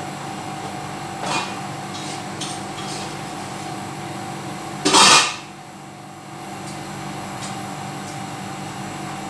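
Cookware clattering on a stovetop: a faint knock a little over a second in, then one loud, short clatter of a pan about five seconds in, over a steady background hum.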